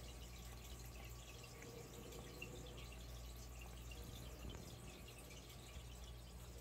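Domestic tabby cat grooming itself, its tongue licking its paw and fur in faint, irregular wet clicks.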